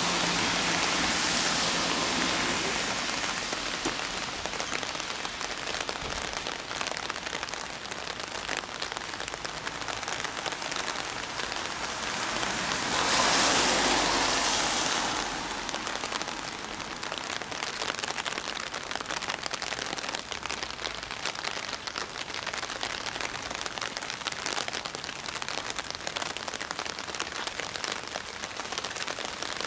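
Steady rain falling on wet ground, with a louder rush of noise lasting about two seconds around the middle.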